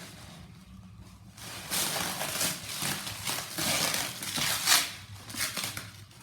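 Laptop packaging being handled: a run of rustling and scraping noises from the box and its wrapping, starting about a second and a half in, with the loudest rustle near the end.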